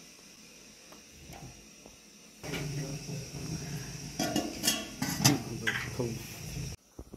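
Oil heater being lit: after a few faint clicks, metal clanks and rattles of the heater's steel drum and lid over a low rush of the fire catching inside; the sound breaks off abruptly near the end.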